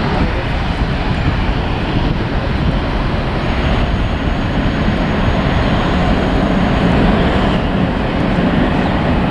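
Boeing 737-800's twin CFM56-7B turbofan engines at takeoff thrust: steady, loud jet noise heavy in the low end as the airliner accelerates down the runway away from the listener.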